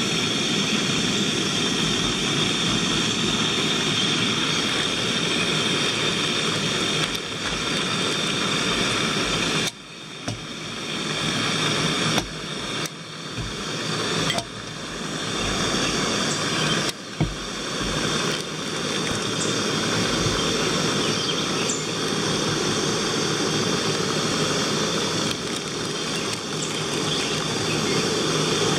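Backpacking gas canister stove burning under a pot of water, a steady hiss, with a few brief drops in level midway.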